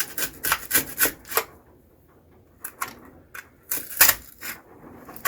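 Utility knife cutting and scraping cured spray foam out of a window opening: irregular short scraping strokes, with a pause about two seconds in.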